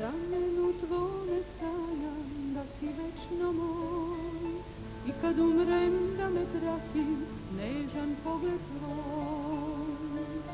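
Music: a slow ballad, a melody line with wavering, gliding notes over sustained accompaniment, with a woman singing at the very end.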